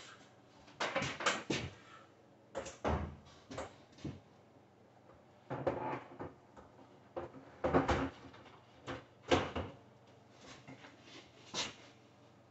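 Frigidaire 30-inch induction cooktop being handled and set down into its countertop cutout: about ten short knocks and scuffs, spread unevenly, as its glass top and frame meet the counter.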